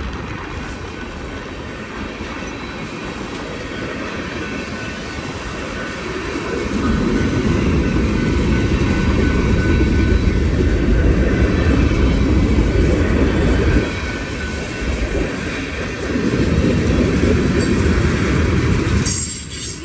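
Freight train cars rolling past on the rails, a steady clatter and rumble of wheels. The rumble swells heavier about six seconds in, dips briefly a little past halfway, then comes back before dropping off sharply near the end.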